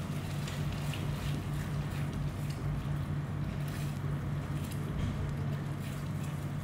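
Spatula stirring thick gravy in a pan on a gas stove, with a few faint scrapes and taps against the pan, over a steady low hum.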